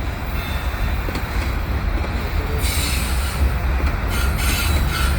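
Freight cars rolling through a tight curve: a steady low rumble of steel wheels on rail, with flange squeal and screech growing louder about halfway through.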